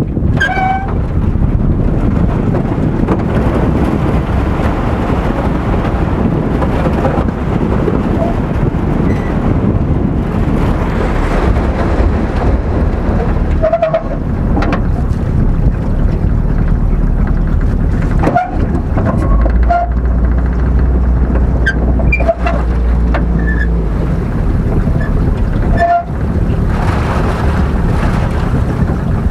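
Aluminium motor boat running steadily at speed, its engine and the hull rushing over water and slushy broken ice, with a few sharp knocks along the way.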